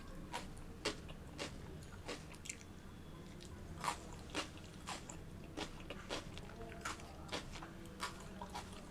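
Close-miked chewing of crisp baked bread crust, with sharp crunches landing unevenly about every half second.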